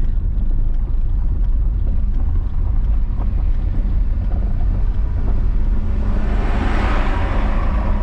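Steady low rumble of a car's engine and its tyres on snowy road, heard from inside the cabin as it creeps along in low gear. Near the end a louder hiss swells and fades.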